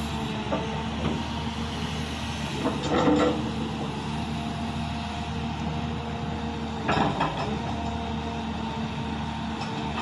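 A LiuGong 939E excavator's Cummins diesel engine running steadily while the hydraulics work the boom, arm and bucket. Two louder surges come about three seconds in and again about seven seconds in.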